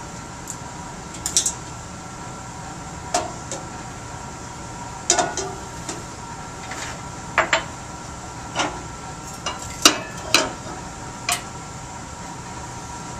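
Stainless steel beaker clinking and knocking against the metal of a critical point dryer's chamber as it is handled and raised into place around it: scattered sharp metallic clinks over a steady hum.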